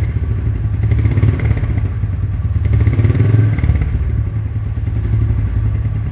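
Royal Enfield Meteor 350's single-cylinder engine running through its stock exhaust, revved briefly twice in the first few seconds, then settling to a steady idle.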